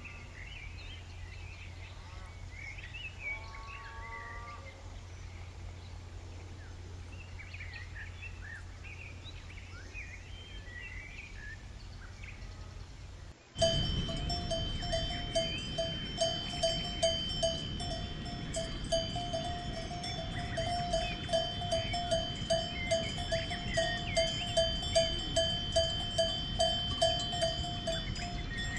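A cow's neck bell clanking in a steady rhythm, about two strikes a second. It comes in suddenly about halfway through and is the loudest sound. Before it there is only a low steady hum with faint chirps.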